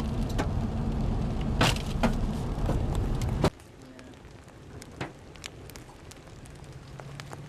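Hailstones striking a vehicle as sharp, irregular knocks over a steady low vehicle rumble. The rumble stops suddenly about three and a half seconds in, leaving a few scattered hail hits.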